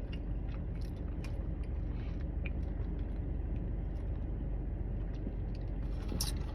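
Steady low hum of a car engine running, heard from inside the cabin, with a few faint clicks.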